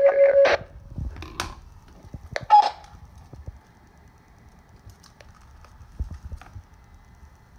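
Scattered clicks and knocks from radio gear being handled, one louder click with a brief beep about two and a half seconds in, over a faint steady whine. It opens with the last half-second of radio audio from the CB receiver's speaker.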